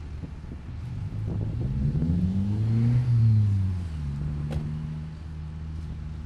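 A large engine revving up over about two seconds, then dropping back and settling to a steady run. There is a single short click near the end.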